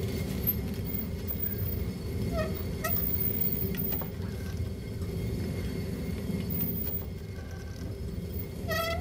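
A steady low rumble with a few short, high chirping calls: two about two and a half and three seconds in, and a rising run of them near the end.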